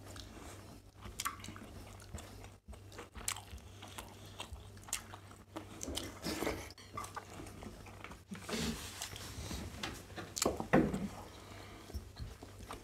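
People eating rice and curry with their hands: chewing and mouth sounds with irregular small clicks of fingers on steel plates, over a low steady hum. A louder knock comes about ten and a half seconds in.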